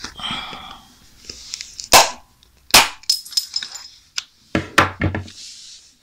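The plastic case of an Apple 60 W MagSafe 1 power adapter cracking and snapping as it is pried open with pliers: several sharp cracks, the loudest about two seconds in and just under three seconds in, with handling rustle between them.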